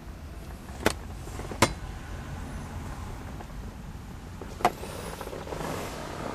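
Steady low rumble of a 1959 Chevrolet Brookwood heard from inside its cabin, with three sharp clicks: two close together near the start and one about two-thirds of the way through.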